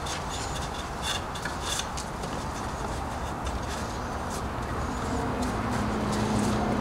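A cloth rubbed over a pine toolbox end and a freshly glued dowel peg, wiping off glue squeeze-out, with a few short scratchy strokes. A low steady hum comes in about five seconds in.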